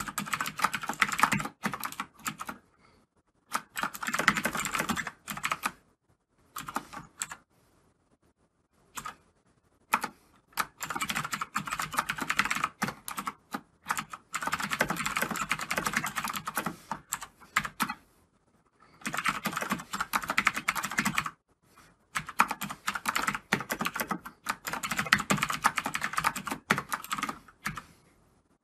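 Fast typing on a computer keyboard: runs of rapid key clicks, some short and some lasting several seconds, broken by brief pauses.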